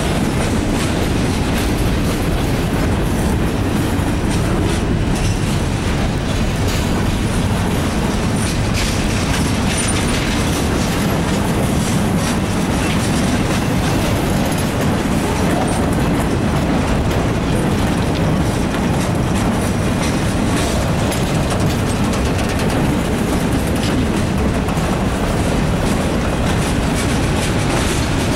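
Freight cars of a mixed freight train rolling steadily past: covered hoppers, boxcars and tank cars rumbling on the rails, with steel wheels clicking over the rail joints.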